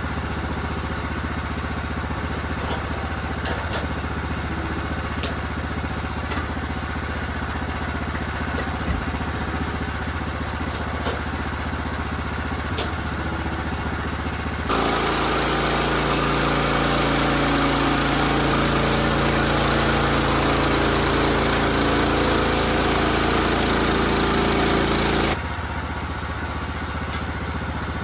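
The Woodland Mills HM126 band sawmill's gasoline engine running steadily. About halfway through, the sound jumps abruptly to a louder, denser run for about ten seconds, then drops back just as suddenly.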